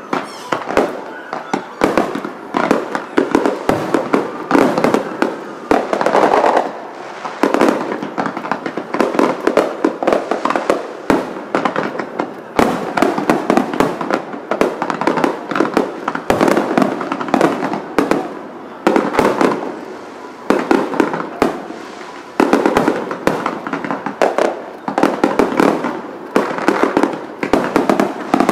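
Aerial fireworks bursting in quick, dense succession: many sharp bangs, several a second, overlapping with no let-up.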